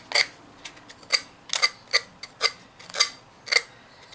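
Small piece of sandpaper rubbed down the edge of a decoupaged ornament in short top-to-bottom strokes, about two a second. It is scraping the excess napkin tissue off the edge while the Mod Podge glue is still wet.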